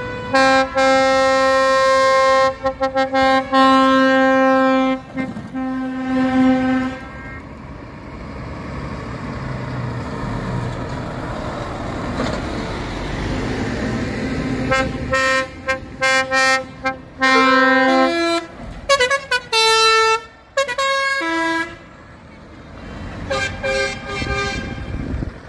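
Lorry air horns sounding long held blasts for the first several seconds, then a heavy diesel truck driving past. Later come horn blasts that step quickly between several different notes, like a tune, and then a few short toots near the end.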